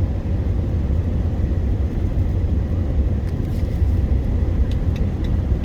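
Steady low road and engine rumble of a pickup truck driving, heard from inside the cab, with a few faint clicks near the end.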